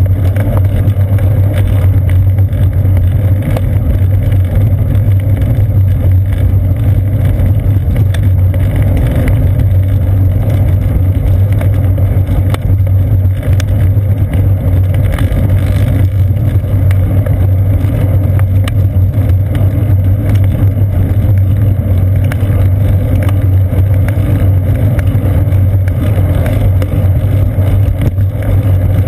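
Steady low rumble of wind buffeting and road vibration picked up by a seat-post-mounted GoPro Hero 2 in its housing as the bicycle rolls along a paved trail.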